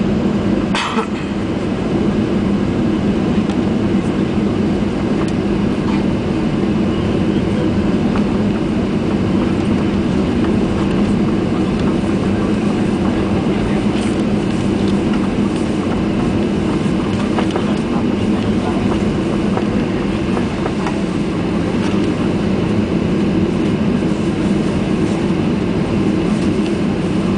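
Cabin noise inside a Boeing 737-800 taxiing: its CFM56 engines at low taxi thrust make a loud, steady hum with a low drone, heard through the fuselage.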